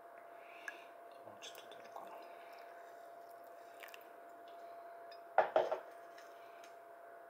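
Pour-over coffee dripping: a freshly wetted bed of ground coffee bubbling in a paper filter in a glass dripper, with small drips and clicks. Two sharp knocks come close together about five and a half seconds in, over a faint steady whine.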